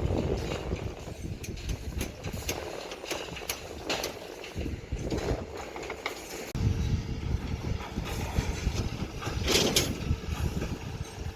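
Excavator engine running with a low rumble that eases off for a couple of seconds in the middle and then picks up again, with scattered knocks and clanks.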